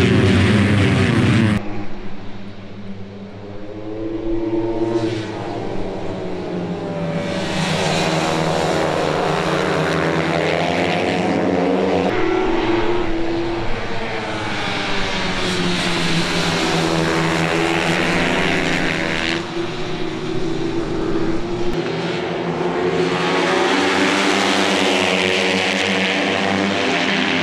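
A pack of small racing motorcycles at high revs on track, engine pitch climbing through the gears and dropping on each shift as several bikes pass. The sound changes abruptly a few times.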